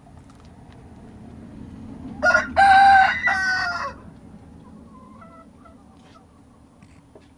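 A rooster crowing once, a full cock-a-doodle-doo lasting nearly two seconds and starting about two seconds in, followed by a few soft hen clucks.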